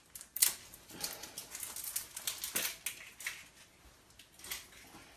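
Short clicks and rustles of things being handled and moved on a kitchen counter, busiest over the first three seconds and then thinning out.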